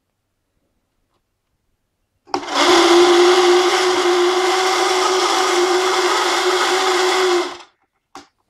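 Twin small battery-powered electric motors in a model warship's hull start abruptly about two seconds in and run steadily with a humming whine for about five seconds, then stop. A short click follows.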